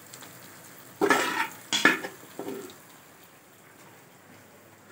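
Metal spoon knocking and scraping against an aluminium pressure-cooker pot as cooked chana dal is tipped out into a wok, with two sharp clatters about a second in and just under two seconds in, a lighter one shortly after, then quieter.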